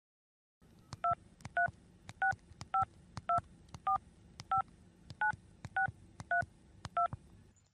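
Touch-tone phone keypad dialing a number: about eleven short two-tone beeps, roughly two a second, each with a faint key click.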